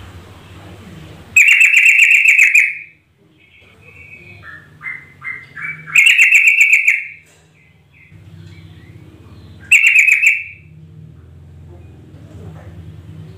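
Yellow-vented bulbul (trucukan) calling: three loud bursts of rapid, bubbling chatter about four seconds apart, with softer short notes between them, over a low steady hum. It is a trucukan call used as a lure to set a caged bird singing.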